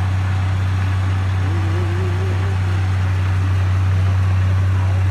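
Tipper dump truck's diesel engine running steadily at a low, even idle after tipping its load.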